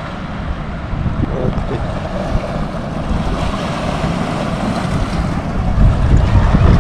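Wind buffeting the microphone outdoors, a steady gusty rumble that grows louder near the end.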